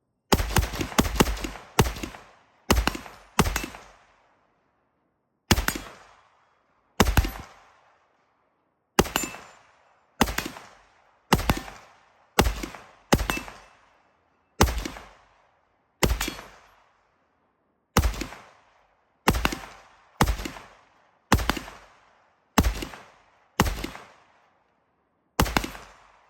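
Bear Creek Arsenal AR-15 semi-automatic rifle firing 5.56 NATO (Federal XM193): a quick string of about five shots right at the start, then about twenty more single shots spaced roughly one to two seconds apart, each with an echoing tail.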